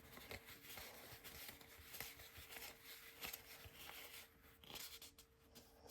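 Near silence, with faint soft rustles and small ticks of trading cards being handled, over a faint steady hum.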